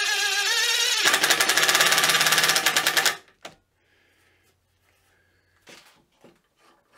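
DeWalt cordless impact driver driving a screw into plywood: the motor whirs, then about a second in the impact hammer starts rattling rapidly as the screw seats, and it stops about three seconds in. A few faint wooden knocks follow near the end.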